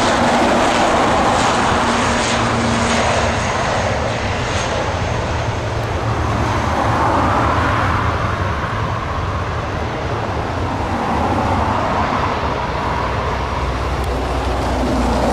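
Jet airliner's engines heard from beside the runway: a loud, continuous rush that swells and eases a little.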